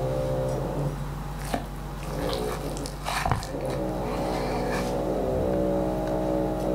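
Steady, even hum of a running motor with several pitches. Over it come a few short knocks and crunches, about one and a half and three seconds in, as a knife cuts through a crisp pan-fried potato cake onto a wooden board.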